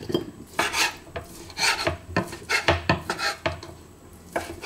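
Knife slicing cooked chicken breast on a wooden cutting board: a run of irregular chopping strokes, several a second, each ending in a knock of the blade on the board.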